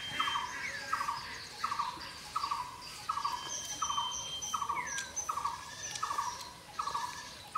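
A bird calling over and over, one short note about every 0.7 seconds, with other birds chirping and whistling around it.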